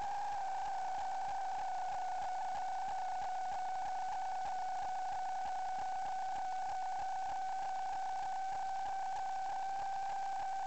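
A steady, high-pitched electrical whine over hiss, wavering only slightly in pitch, picked up by a sewer inspection camera system's audio.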